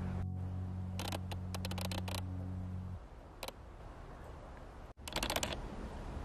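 Bursts of rapid, sharp mechanical clicking, heard a few times, over a steady low drone that cuts off about three seconds in.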